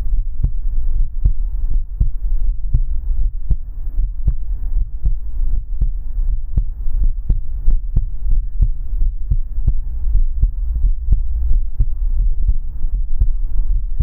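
Heartbeat recording: steady, evenly spaced thumps of a beating heart over a continuous low hum.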